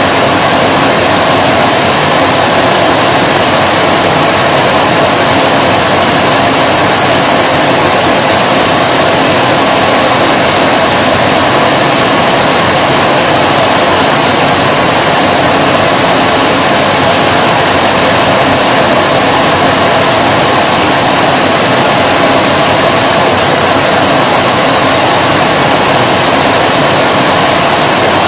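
Vacuum cleaner motor running continuously, a loud, steady, unchanging drone of air noise.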